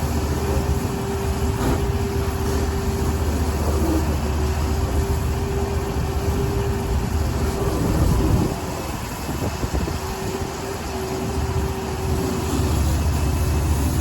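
An engine running steadily, with a constant low rumble and a steady hum; it swells briefly a little past the middle, then settles slightly quieter before picking back up near the end.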